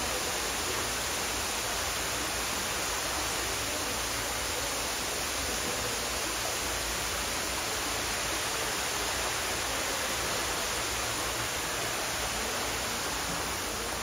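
Steady rush of falling water from a waterfall, an even hiss with no change in level.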